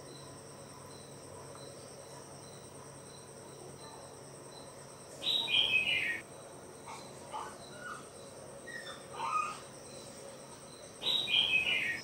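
Outdoor ambience of crickets chirping steadily, with soft regular pulses early on. A bird calls twice with a quick run of notes falling in pitch, about five seconds in and again near the end, with a few softer calls between.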